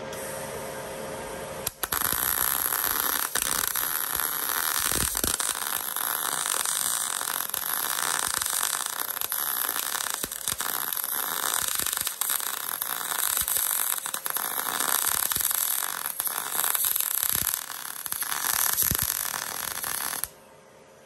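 MIG welder arc crackling in one continuous bead on steel chassis bracing. It starts about two seconds in and cuts off suddenly just before the end, with a steady hum under it.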